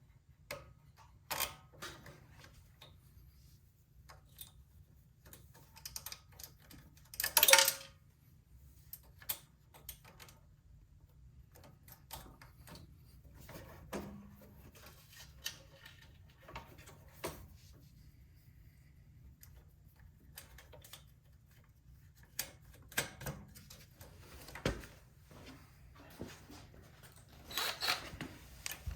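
Scattered clicks, taps and light clatter of hand tools and engine parts being handled as the snowblower's cover is refitted, with a louder clatter about seven seconds in. A steady low hum runs underneath.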